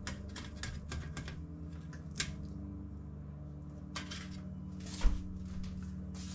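Metal knife and fork clicking and scraping against a roasting pan while cutting up braised beef: a quick run of clicks at first, then scattered ones, with one dull thump about five seconds in.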